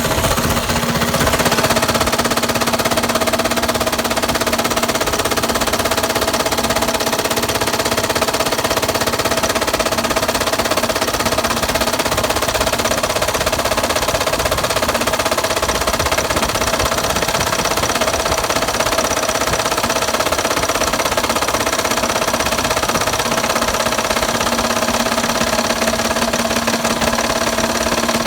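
Blown engine running with a rapid, steady knocking: rod knock, the sign of a worn or failed connecting-rod bearing.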